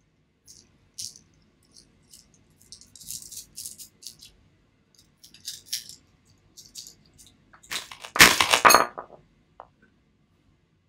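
Small polished stones clicking and clinking against each other in a hand close to the microphone, in scattered light taps. About eight seconds in comes a louder burst of rattling and rubbing that lasts about a second.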